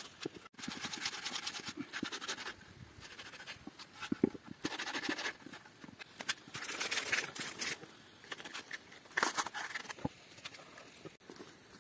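Quick back-and-forth rubbing strokes on bare wood as a freshly carved wooden plate is smoothed by hand, in several runs with short pauses between them.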